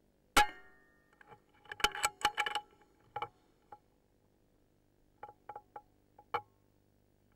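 A single shot from an Air Arms S410K pre-charged air rifle: one sharp crack with a short ringing tail. About a second and a half later comes a quick run of metallic clicks and clinks, and a few more lighter clicks follow near the end as the rifle is handled.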